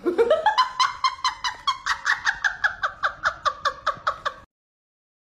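A person's shrill, rapid laughter: a rising squeal, then quick even bursts of about four or five a second, cut off abruptly near the end.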